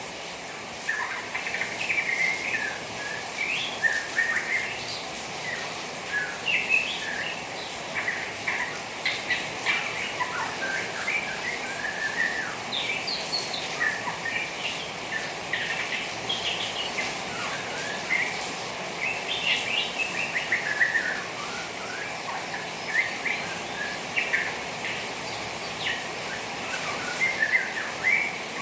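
Juvenile white-rumped shama twittering in a steady stream of quick chirps and fluttering notes, the chattering 'ngeriwik' of a young shama. Behind it is a steady hiss of trickling rainwater, the sound used to get the bird singing.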